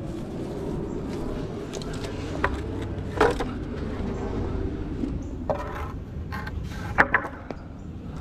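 Vehicle engine idling with a steady low rumble, and a few sharp knocks, the loudest about three seconds in and about seven seconds in.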